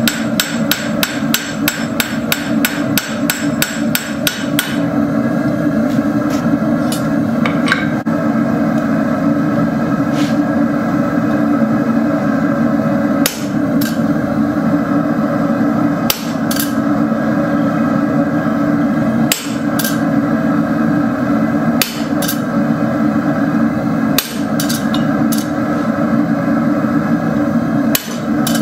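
Hand hammer striking hot steel rod on an anvil: a rapid run of about four blows a second for the first five seconds, then lighter single and paired blows every two or three seconds. Under it all the forge runs with a steady roar.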